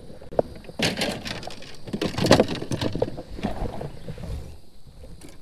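Someone shifting about in a fishing kayak: rustling and knocking of clothing and gear close to the microphone, loudest around the middle, then settling down.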